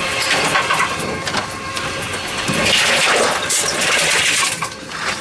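Tomra T-63 reverse vending machine running as bottles and cans are fed in: a motor whirring with clicks and clatter of containers, swelling louder twice about three and four seconds in.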